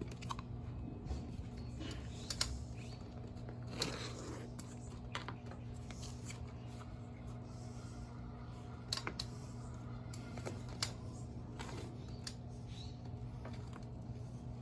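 Scattered light clicks, taps and rustles of a shoe and a strap-type pedal binding being worked as a foot is fitted into the pedal, over a steady low hum.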